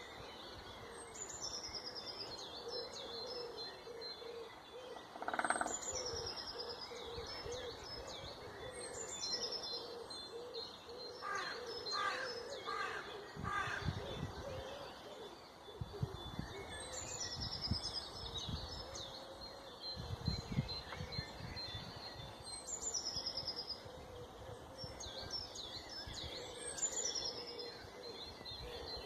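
Wild birds singing: a short, high song phrase repeats every few seconds, with a brief call about five seconds in and a run of four lower repeated notes near the middle. Low rumbling comes and goes in the middle stretch.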